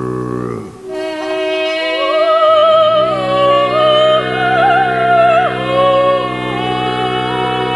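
A woman singing a slow, sustained melody with a wide vibrato over a steady low drone. The drone drops out about a second in and comes back near the three-second mark.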